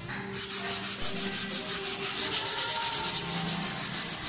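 Sandpaper rubbed by hand over a dried puttied wall in quick, even back-and-forth strokes, about five or six a second. The putty coat is being sanded smooth, taking down high spots and dips before the final coat of paint.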